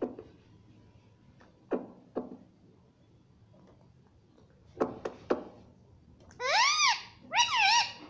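Indian ringneck parakeet giving a few short clicking chirps, then two loud warbling calls near the end, each rising and falling in pitch.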